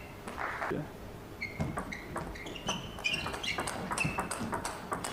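Table tennis rally: the ball clicking off the bats and the table in quick succession, with short high squeaks of the players' shoes on the court floor, busier from about a second and a half in.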